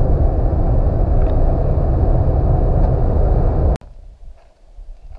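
Steady, loud road and engine noise inside a moving car. It cuts off abruptly a little under four seconds in, giving way to much quieter outdoor sound with a few faint low knocks.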